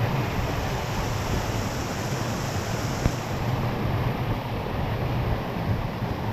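Steady rushing surf with wind buffeting the microphone in a low rumble, and a single sharp tap about three seconds in.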